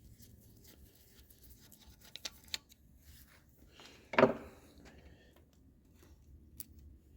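Hand tools and engine parts being handled on a workbench during an engine teardown: faint scattered clicks and rattles, a sharp double click a little over two seconds in, and one louder clunk about four seconds in.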